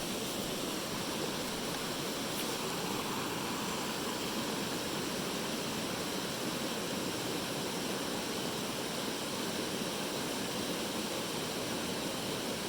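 Mountain stream rushing steadily, a constant wash of running water.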